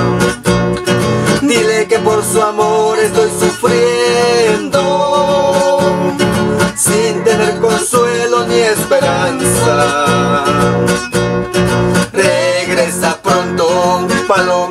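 Two men singing a sanjuanito together over a strummed acoustic guitar.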